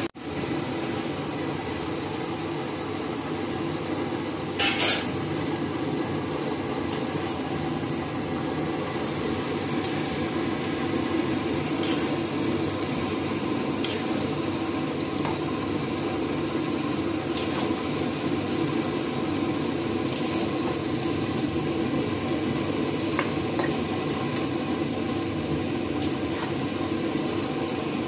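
Chicken and masala frying in a pan with a steady sizzle, while a metal spoon stirs and now and then clicks against the pan, once louder about five seconds in.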